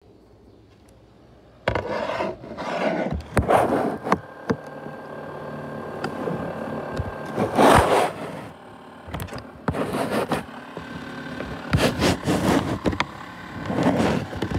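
Irregular scraping and rubbing with sharp clicks and knocks, starting about two seconds in and coming in uneven bursts, over a faint steady hum.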